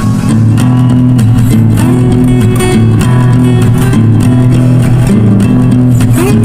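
Background music led by guitar over a bass line, with a few notes that slide in pitch.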